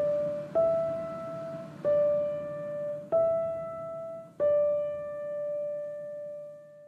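Background piano music: slow single notes struck about every second and a quarter, the last one left to ring and fade away.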